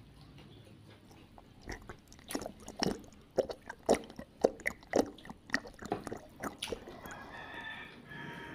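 Close-up wet mouth sounds of chewing roast chicken: irregular smacks and clicks, several a second, start about two seconds in and thin out near the end. A faint drawn-out pitched call comes in near the end.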